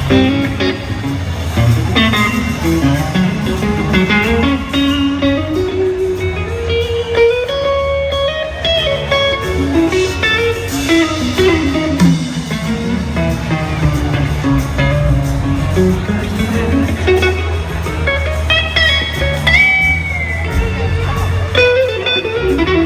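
Electric guitar solo played live on a Gibson Firebird over an amplified rock band, a lead line that climbs and falls in pitch with sliding, bent notes.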